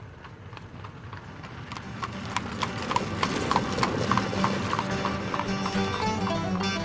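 Horse hooves clip-clopping in a steady rhythm of about three to four steps a second, growing louder as if approaching. Plucked-string music, like guitar or mandolin, comes in around five seconds in.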